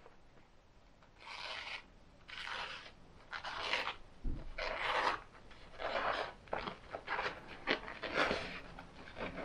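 Knife blade slicing through a sheet of paper towel held in one hand, about nine short cutting strokes in a row, with one dull low bump about four seconds in. The edge is freshly polished on a pine-block strop and is being tested for sharpness.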